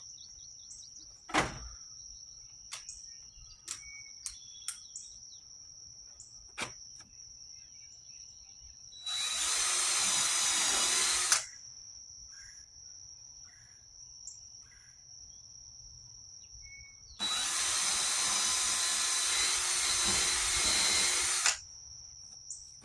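Cordless power drill running in two steady bursts of a few seconds each, boring pilot holes into a wooden stud for decking screws. A sharp knock comes about a second and a half in.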